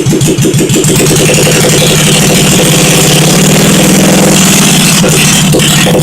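1971 Honda SL350's freshly rebuilt parallel-twin engine running on its first start, just after catching: it fires unevenly for about a second, then settles into a steady run.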